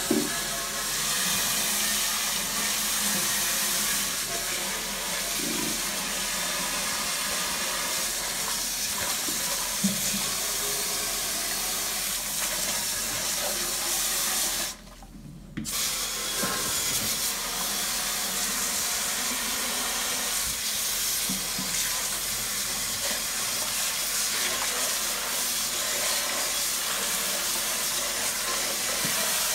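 Scalding hot water from a hand-held shower-head spray nozzle hissing steadily onto the stainless steel vat of an emptied commercial deep fryer, rinsing out fry debris. The spray cuts off for about a second midway, then starts again.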